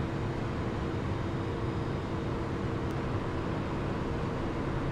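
Steady cockpit noise of a Cessna Citation Excel business jet at climb power: its twin turbofans and the rush of air over the airframe. Two faint steady hums under it fade out about two seconds in.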